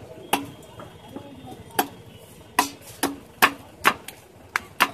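A blade chopping through a fish onto a wooden block: about eight sharp knocks at uneven intervals, coming faster in the second half.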